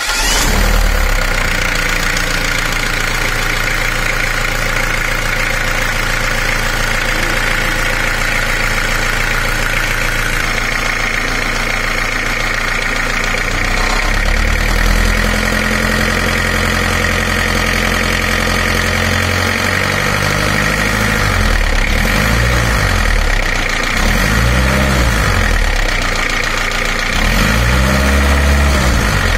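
Engine with an exposed flywheel, just started and running steadily with a steady high whine. In the last third its speed rises and falls a few times.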